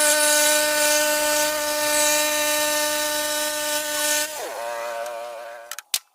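Portable band sawmill running steadily with a hissing blade, then winding down about four seconds in, its pitch falling as it shuts off. A few sharp clicks near the end.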